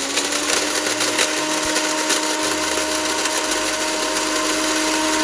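Electric blender grinding whole spices (star anise, cardamom, cloves, black pepper, nutmeg, mace) into garam masala powder. It switches on suddenly, and its motor whine rises briefly, then holds a steady pitch over the loud grinding noise.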